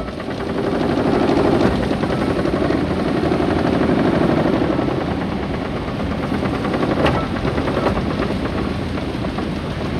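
A 1911 triple-expansion marine-type steam engine being started by its donkey engine, giving a rapid, steady mechanical beat with a sharp knock about seven seconds in.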